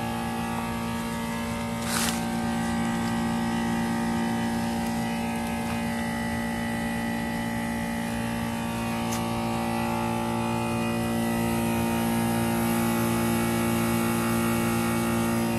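1996 Goodman 4-ton Desert Series heat pump outdoor unit running through its defrost cycle, a steady mechanical hum. A single sharp click comes about two seconds in, and the hum grows slightly louder in the second half.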